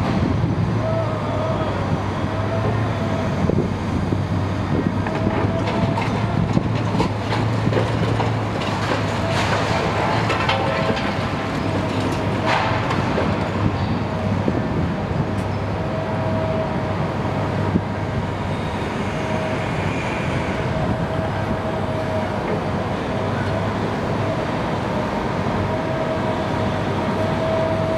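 Demolition excavator's diesel engine running steadily under load, with a whine that comes and goes. Around the middle its hydraulic grab tears at the roof, with crunching and clattering of breaking timber and debris.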